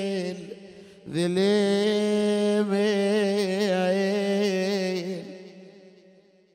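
A mahwal's solo male voice chanting an Iraqi Arabic mourning lament. A held note ends just after the start, then the word "dhalil" is drawn out on one long wavering note from about a second in, fading away near the end.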